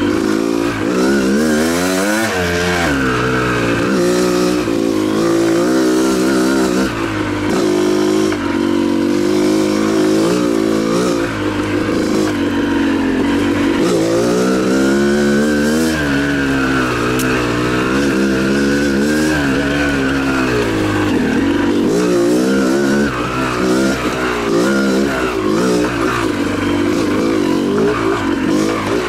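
Yamaha YZ250 two-stroke single-cylinder dirt bike engine being ridden, revving up and dropping back again and again as the throttle opens and closes.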